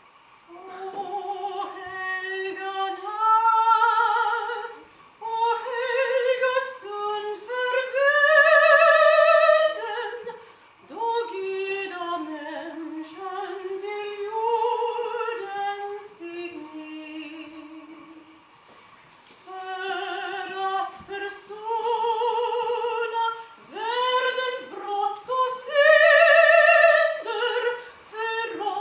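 A woman, a professional singer, singing a slow solo song alone, with no accompaniment, in long held phrases broken by short pauses, her voice wavering with a wide vibrato.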